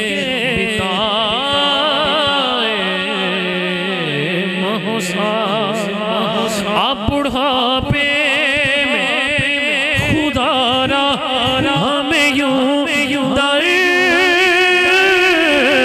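A man singing a naat into a microphone over a sound system, holding long ornamented notes that waver up and down, with a steady low drone underneath.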